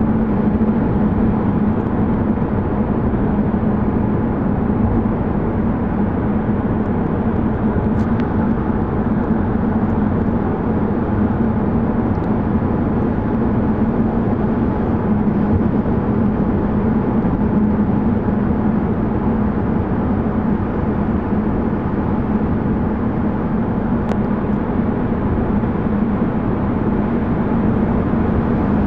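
Car driving steadily through a road tunnel, heard from inside the cabin: constant tyre and engine noise with a steady low drone.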